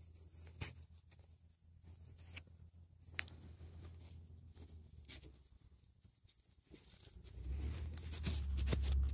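Fingertips scratching and picking at sandy soil, making faint scattered scrapes and ticks as the dirt is worked away from a stone point stuck in the wall of a hole. A louder low rumble builds over the last couple of seconds.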